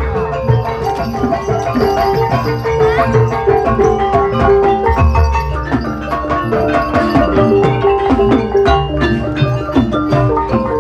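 Javanese gamelan music accompanying an ebeg (jathilan) horse dance: mallet-struck keyed instruments play an interlocking melody over steady drum strokes.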